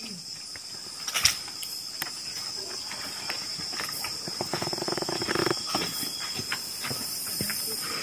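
Crickets chirring steadily, with scattered light clicks and rustles and one sharper click about a second in.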